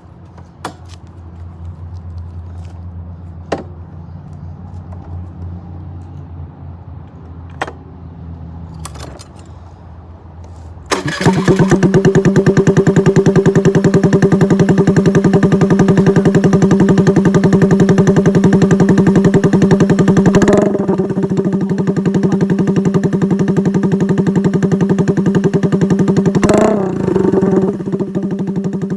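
Honda Navi's 109cc single-cylinder four-stroke engine, breathing through a Vance & Hines exhaust with its baffle silencer removed. After a low hum and a few clicks, it starts about 11 seconds in and runs extremely loud and steady, with a couple of brief blips of throttle near the end.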